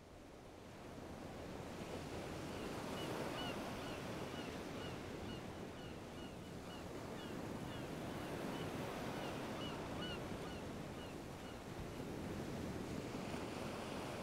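Steady wash of rough water fading in from silence, with wind. Through the middle, short high chirps repeat about twice a second.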